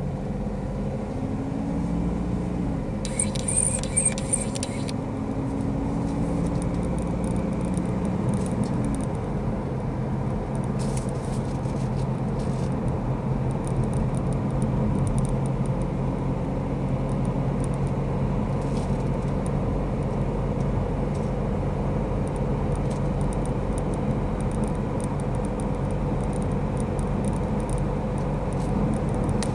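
Mazda CX-3 driving, heard from inside the cabin: steady engine and road noise, the engine pitch drifting slowly up and down. A short burst of high ticking comes about three seconds in.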